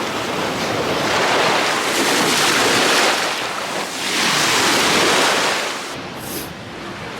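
Sea waves washing onto the shore: a steady rush that swells twice, once about a second in and again about four seconds in, then eases off near the end.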